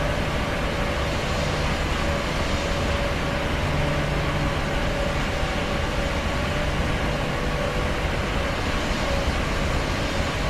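Airplane's steady drone: an even rush of engine and air noise with a steady hum in it, unchanging throughout.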